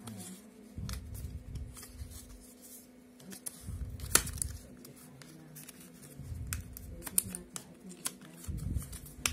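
Hands struggling to open a phone charger's plastic packaging: scattered clicks, scrapes and rustles of plastic with dull handling bumps, and one sharp click about four seconds in.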